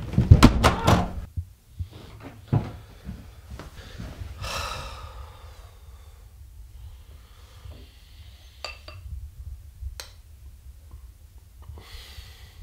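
A front door is banged shut with a few heavy knocks in the first second. About four seconds in comes a long exhale, followed later by a couple of light metal clinks of a spoon against a cereal bowl.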